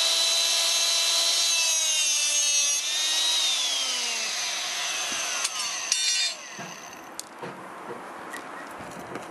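Handheld electric-hydraulic rebar cutter running its motor with a high whine. The pitch sags as the blade presses into the bar under load, and a short sharp crack about six seconds in is the bar shearing through. After that the motor stops and only a few light clicks follow.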